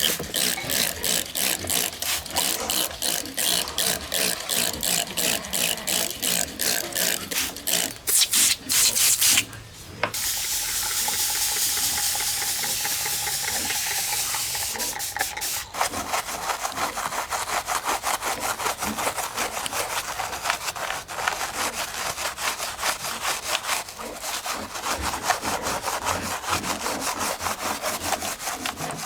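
Brush scrubbing a muddy diecast model car in quick, rhythmic back-and-forth strokes. About a third of the way in the scrubbing gives way to a steady hiss lasting several seconds, then the scrubbing starts again.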